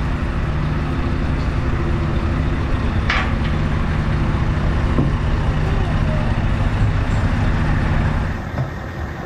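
Large mobile crane's diesel engine running steadily under load, with a steady low hum; it eases off a little past eight seconds in.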